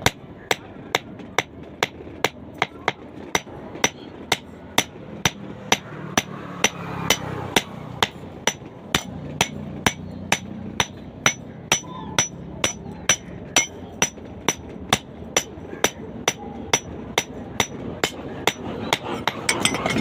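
Hammer blows on iron at a blacksmith's anvil, in a steady even rhythm of about two strikes a second, each with a short metallic ring, as a steel bar is forged to a point.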